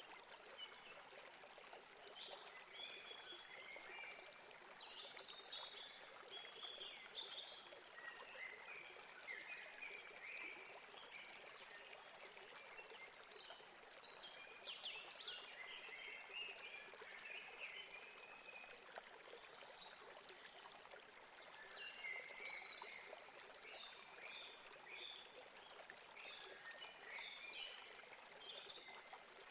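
Faint steady rush of a stream running over rocks, with many small birds chirping and twittering over it in short bursts throughout.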